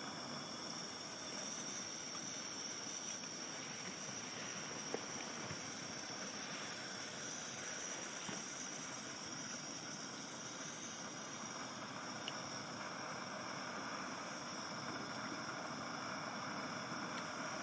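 Lit camping stove burner hissing steadily, with a steady high-pitched tone above it and a couple of faint clicks.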